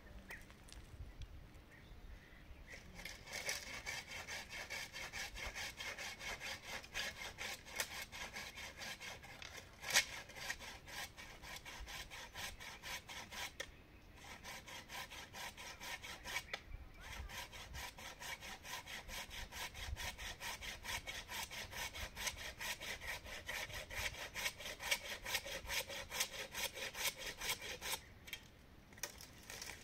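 Hand saw cutting through a tree branch in quick, even strokes, about four a second, with a few short pauses.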